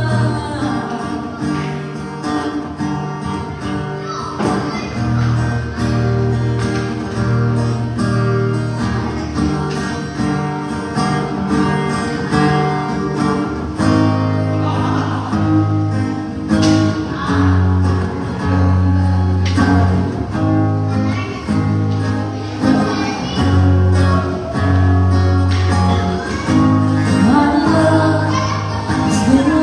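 A woman singing a song with acoustic guitar accompaniment, the guitar strummed in chords.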